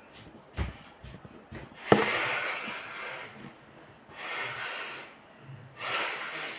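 Small clicks and knocks of handling, then a sharp knock about two seconds in, followed by three loud breathy exhalations close to the microphone, each lasting about a second.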